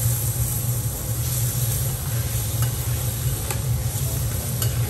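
Food sizzling on a teppanyaki steel griddle, with a few sharp clicks of metal spatulas against the plate in the second half, over a steady low hum.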